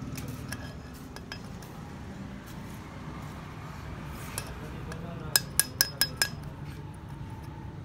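A steel hand tool clinks against a cylinder head as it is worked around a valve-spring bore. About five seconds in there is a quick run of five sharp metallic clinks, with lighter ticks scattered around them, over a steady low hum.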